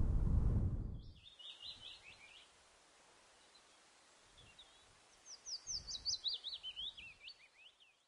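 A low rumble fades out in the first second, then a small songbird chirps: a quick burst of chirps, a single chirp, and then a longer run of rapid chirps that falls steadily in pitch.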